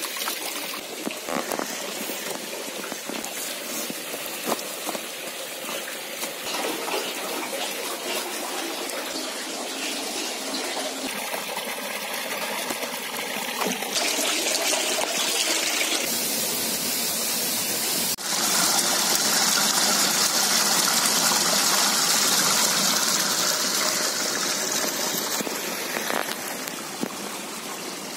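Fresh water running and splashing into trout-holding tanks, from a hose pouring into a tub and an inlet gushing into a pond. The sound shifts several times and is louder from about two-thirds of the way in.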